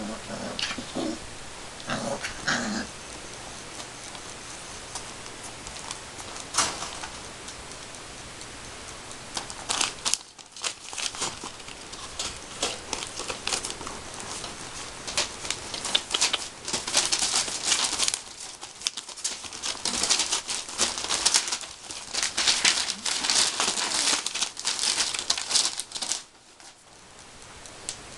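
Airedale puppies give a few short whimpers at first, then scramble over newspaper, paper crinkling and rustling under their paws in a dense crackle from about ten seconds in, stopping shortly before the end.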